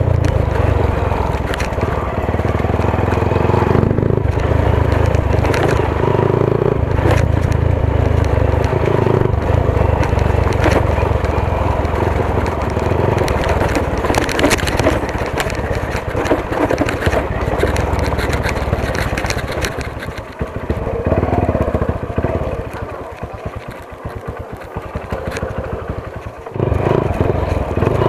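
Hero Honda CBZ Xtreme motorcycle's single-cylinder engine running while ridden over a rough dirt trail, with frequent knocks and crunches from the stony ground. About twenty seconds in the engine eases off and runs quieter for several seconds, then picks up again near the end.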